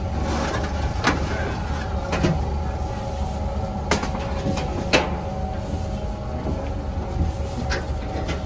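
A metal baking tray pulled out of a deck oven and handled, giving a few sharp metal clanks over a steady low hum of bakery machinery.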